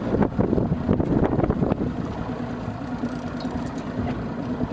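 A boat engine running steadily at low revs, with a run of knocks and thumps in the first two seconds.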